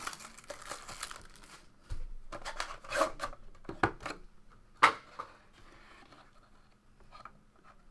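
Plastic shrink-wrap being torn and crinkled off a 2015 Topps Dynasty Baseball box, then the cardboard box opened, with a sharp tap about five seconds in. The last few seconds hold only faint handling sounds.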